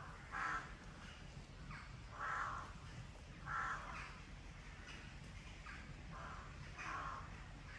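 Short calls from an animal, repeated every second or two: four louder ones and several fainter ones in between, over a steady low rumble.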